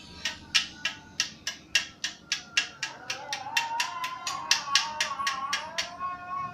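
Background music: a steady beat of sharp snapping clicks, about three a second, joined by a sustained melody about halfway through.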